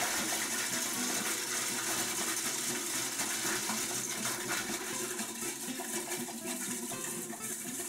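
Stainless-steel food processor running, its blade grinding pieces of dry bread into breadcrumbs: a loud, steady whirring and rattling hiss that starts abruptly and runs on evenly.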